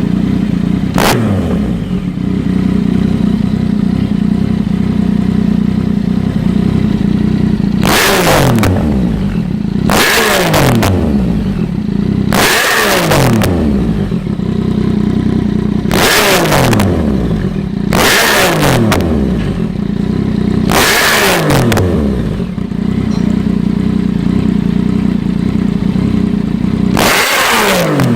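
Yamaha MT-09 three-cylinder engine idling through an aftermarket SC-Project exhaust with a snail-shaped link pipe, blipped about eight times in short, sharp revs that fall straight back to idle each time.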